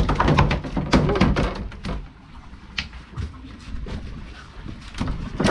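Rapid knocking and thudding in a plastic fish crate for about the first two seconds, as a freshly gaffed mackerel thrashes against the crate and the gaff knocks in it, then only a few scattered clicks.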